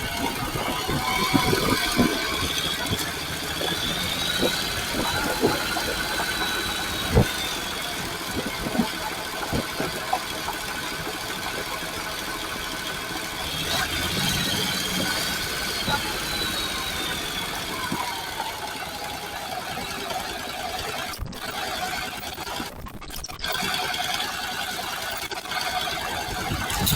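Honda NC750X motorcycle's parallel-twin engine running while riding, its pitch rising and falling twice, with scattered knocks and clicks over the first half.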